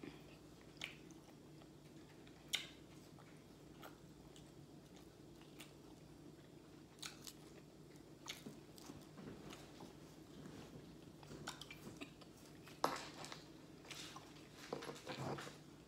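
Faint, scattered eating sounds: small clicks and crinkles of plastic honey packets being squeezed, and mouth sounds of biting and chewing, louder and busier for a couple of seconds near the end. A faint steady hum lies underneath.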